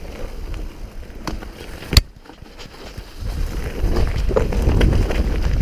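Mountain bike descending a rough singletrack: tyres rumbling over dirt and stones, the bike rattling, with wind on the microphone. A sharp knock about two seconds in, then a louder, rougher rumble from about three seconds in on a faster, stonier stretch.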